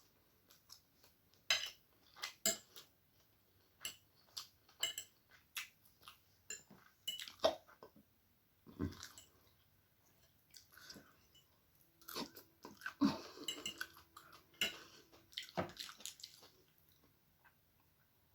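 Close-up eating sounds: a person chewing egg chow mein noodles, with irregular sharp wet clicks and smacks.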